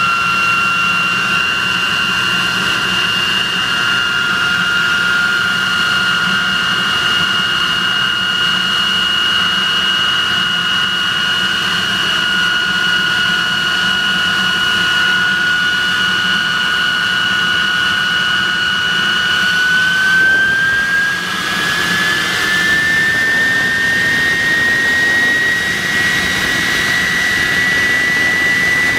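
de Havilland Venom's Ghost turbojet running on the ground, a loud jet roar with a steady high whine. About twenty seconds in, the whine rises in pitch and settles higher as the engine speeds up.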